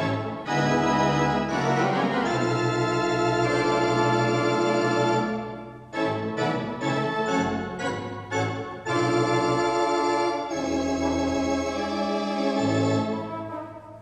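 The Mighty Wurlitzer theatre pipe organ playing held full chords. Partway through they give way to a stretch of short, detached notes, then the held chords return.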